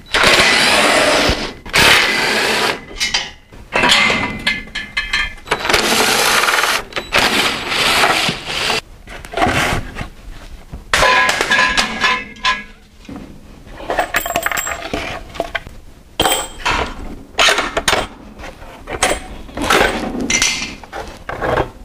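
DeWalt cordless driver running bolts out in repeated short bursts, mixed with clinks and knocks of bolts and parts being handled as a foam mock-up engine's cylinder head and block are taken off.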